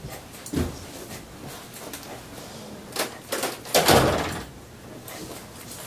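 Haircutting scissors snipping hair in a few sharp, separate clicks, with a louder, duller knock about four seconds in.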